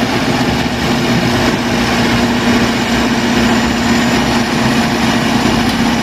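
Large crawler bulldozer's diesel engine running steadily as the machine pushes a pile of dirt with its blade, with a constant hum over dense mechanical noise.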